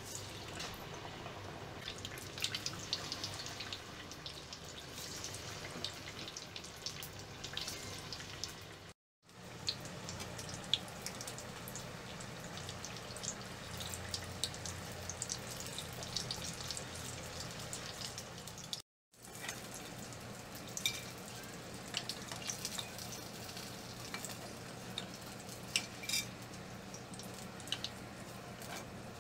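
Battered onion slices (onion bajji) deep-frying in hot oil in a pot: a steady sizzle with frequent crackles and pops. The sound breaks off briefly twice, for under a second each time.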